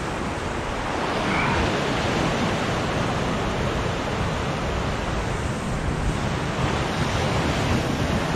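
Sea surf washing against shoreline rocks, a steady rushing, with wind buffeting the microphone.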